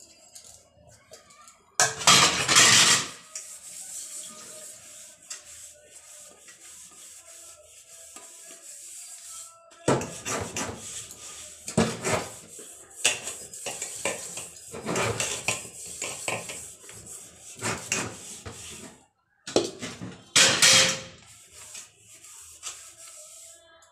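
Steel utensils clattering and scraping against each other and a stainless-steel sink as dishes are washed by hand. There is a loud burst about two seconds in, then a run of knocks and scrubbing from about ten seconds on.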